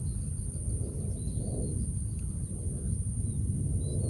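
Outdoor rural ambience: a steady low rumble of background noise with a constant thin high whine, and a few faint bird chirps, one about a second in and one near the end.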